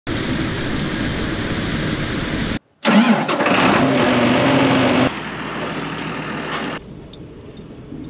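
A farm tractor's diesel engine starts, its pitch rising as it catches and then holding steady, with a puff of dark exhaust smoke at the stack. Before it, a steady engine noise cuts off suddenly about two and a half seconds in, and the level steps down twice in the second half.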